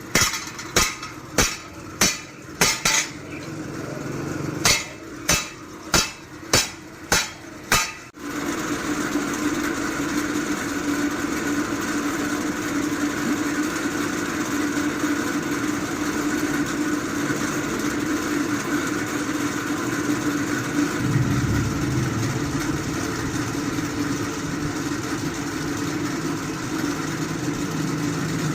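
Hammer blows on metal, about two a second, in two runs over the first eight seconds, typical of blade metal being forged by hand. Then a machine starts running steadily, with a constant hum, and continues to the end.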